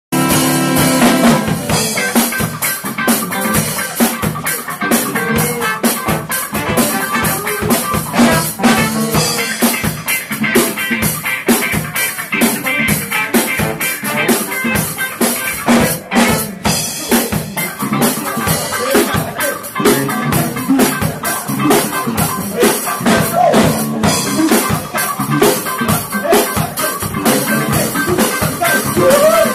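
A band playing live, a drum kit keeping a steady beat with kick, snare and rimshot hits under the other instruments.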